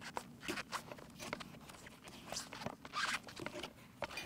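Paintball air tank being screwed by hand into the marker's air source adapter: short, irregular scraping and rasping strokes as the tank and its threads are turned.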